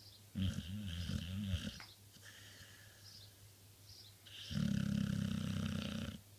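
A sleeping dog snoring: two long snores, one starting about half a second in and a louder one from about four and a half seconds, with a quieter breath between them.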